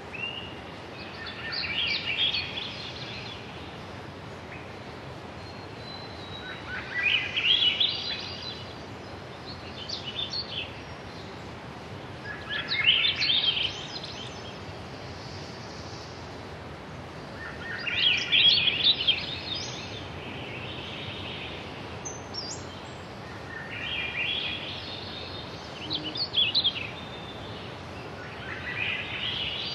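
A songbird singing short phrases of quick high notes, repeating every few seconds, over a steady background hiss.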